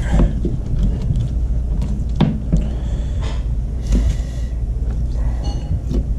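A fillet knife and gloved hands work a burbot on a plastic cutting board: a few knocks and soft scrapes over a steady low rumble.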